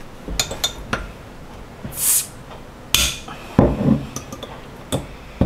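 Metal bottle-opener hook of a pen-sized multi-tool being worked against the crown cap of a glass bottle: a scatter of sharp clicks and clinks, with a couple of short scraping rasps as the cap is levered.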